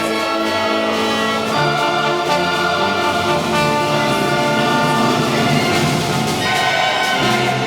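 Orchestra playing a sustained passage with prominent brass, trumpets and trombones.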